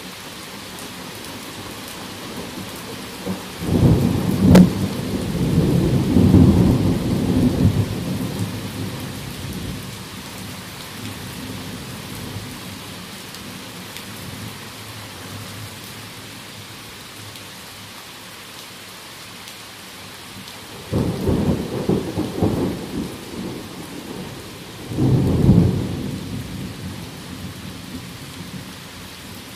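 Heavy rain falling steadily, with thunder. A sharp crack about four seconds in rolls on for several seconds, then two shorter rumbles follow, about twenty-one and twenty-five seconds in.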